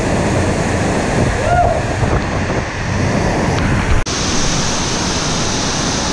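Steady rush of falling, splashing water. About four seconds in it cuts abruptly to a waterfall heard up close, a brighter, hissier roar.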